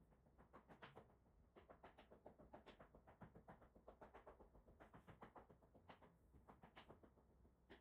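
Faint, quick rubbing and patting strokes of hands massaging a cat's fur, coming in rapid clusters several times a second.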